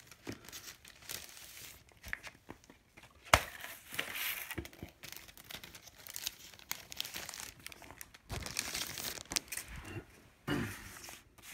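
Rustling and crinkling of paper and record packaging as a vinyl LP and its press release are handled, with a sharp click about three seconds in.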